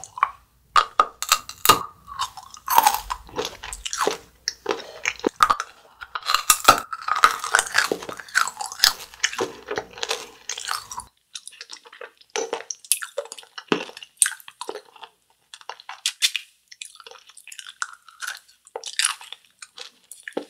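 A dice-shaped hard-candy lollipop being bitten and chewed in the mouth, giving irregular sharp crunches and chewing sounds.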